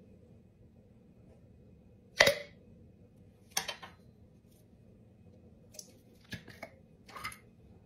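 Metal lid of a glass jar popping as a fork pries under its edge and breaks the vacuum seal: one sharp pop about two seconds in, a second click over a second later, then a few light clicks of the lid being handled near the end.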